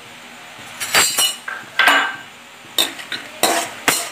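Metal spoon scraping and clinking against an iron kadai while stirring peanuts, in about seven short, irregular strokes starting about a second in.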